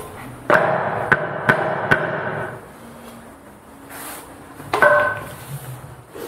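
Hammer tapping a glued wooden patch down into a ginkgo board: four quick blows about half a second apart, each leaving a short ringing tone, then one more blow near the end.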